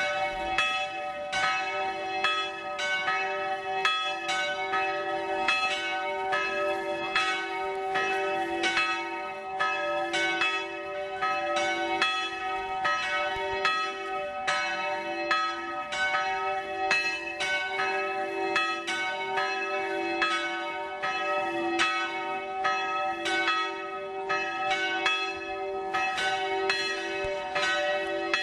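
Church bells pealing continuously, struck over and over in close succession, with several bell tones ringing on.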